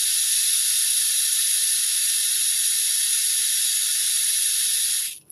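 Garden hose spray hissing steadily as it waters potted succulents, stopping abruptly near the end.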